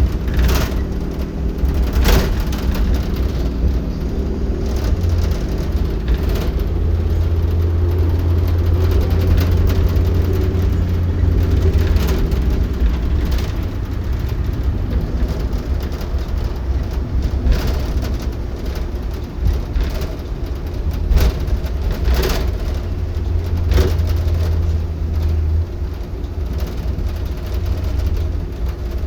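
Blue Bird All American T3RE school bus with a Cummins Westport L9N natural-gas engine running: a steady low rumble that swells and eases, with scattered sharp knocks and rattles.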